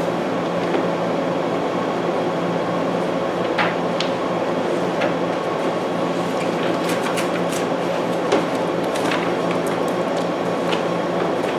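Steady background hum and hiss of running room machinery, with scattered light clicks and rustles as the pages of a Bible are turned and handled.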